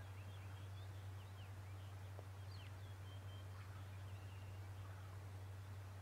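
Steady low hum, with faint short high bird chirps scattered through it.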